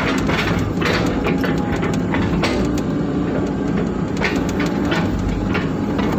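Excavator's diesel engine running steadily under working load, heard from inside the cab, with occasional clunks as the bucket digs and scrapes wet mud.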